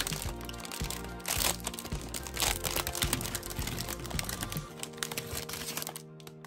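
Crinkly plastic candy wrapper of a Peeps Delights pack crackling as it is handled and opened, over background music; the crackling stops near the end.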